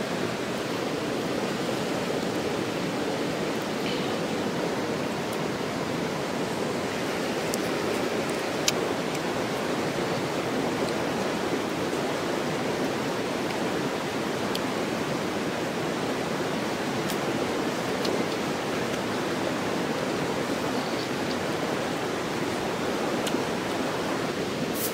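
A steady rushing outdoor background noise runs throughout, with a few faint small clicks.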